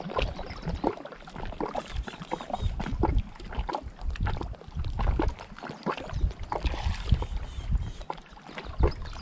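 Water lapping and slapping against the hull of a small fishing boat: irregular knocks and splashes over a low, uneven rumble.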